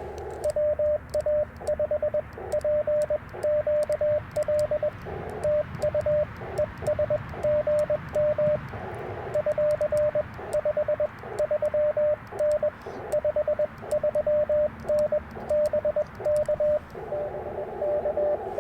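Morse code being sent on an Icom IC-705 transceiver: a steady single-pitched sidetone keyed in dots and dashes, with faint clicks of the paddle key. Receiver hiss returns in the short pauses between words and again near the end, when a fainter keyed tone comes through the static.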